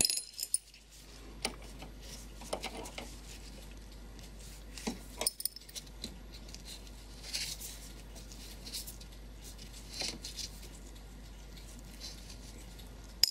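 Scattered light metallic clicks and scrapes as a nut is undone from a pillar of a brass Japanese 40-day wall clock movement.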